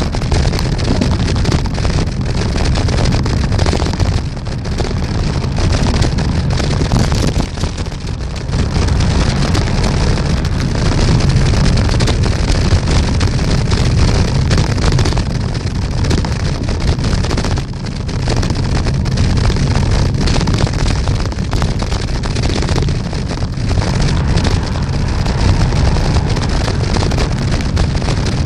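Wind buffeting the microphone of a camera on a moving bicycle: a loud, continuous low rumble that eases briefly a few times.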